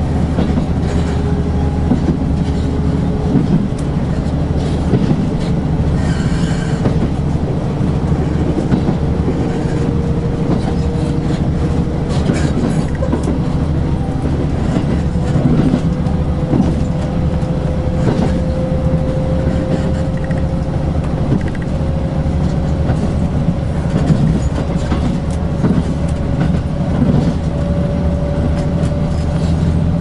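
Express train running noise heard from inside a carriage as the train gathers speed: a steady low hum with a faint whine that rises slowly in pitch, and scattered clicks of the wheels on the rails.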